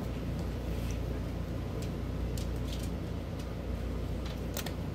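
Steady low hum of a ceiling fan running, with a few faint sticky clicks from slime being pulled and stretched by hand, a little more of them near the end.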